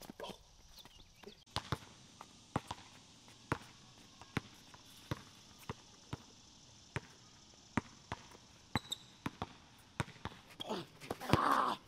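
Basketball being dribbled: single sharp bounces, about one a second, with a short louder noise near the end.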